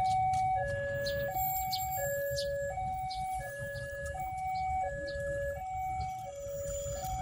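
Electronic two-tone level-crossing warning alarm sounding as a train approaches, alternating between a high and a low tone about every 0.7 seconds. A low rumble runs underneath.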